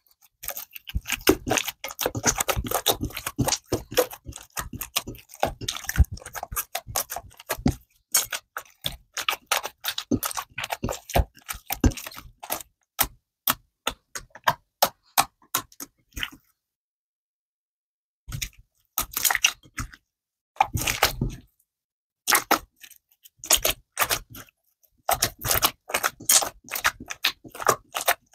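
Hands kneading, squeezing and poking soft blue glue slime against a glass bowl, making rapid wet clicks, pops and squelches. The sound cuts out completely for about two seconds past the middle, then the clicking resumes.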